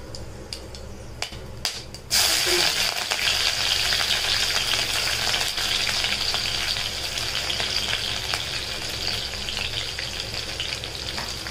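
A few sharp crackles from cloves and fennel seeds in a little hot oil in a cast-iron kadai, then about two seconds in chopped onion and green chillies go into the oil and set off a loud, steady frying sizzle that eases a little toward the end.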